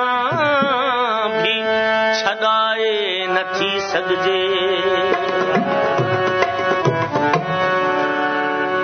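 Sindhi folk song: a singer's voice sliding through wavering ornaments in the first few seconds, over steady held instrumental notes and frequent dholak drum strokes. The melody settles into longer held notes in the second half.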